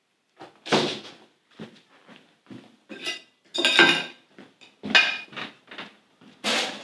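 Crockery and cutlery clattering at a kitchen counter: a string of irregular clinks and knocks.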